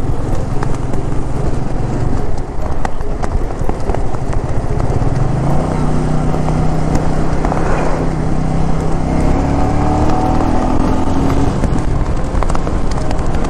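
Motorcycle engine running under way, over heavy wind rush; the engine note rises about five seconds in and again later as it speeds up.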